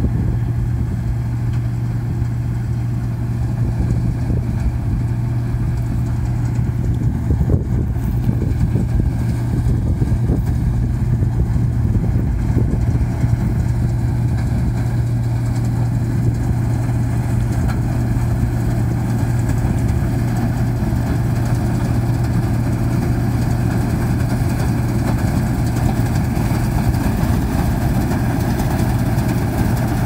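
Case IH 2188 combine harvester running while cutting and threshing soybeans: a steady low drone. Its higher machinery sounds grow clearer near the end as it comes close.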